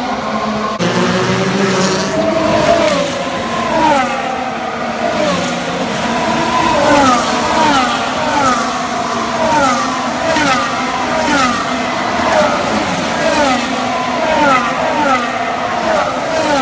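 Formula One cars' V6 turbo engines running on track. Their engine note drops in pitch again and again, about once or twice a second.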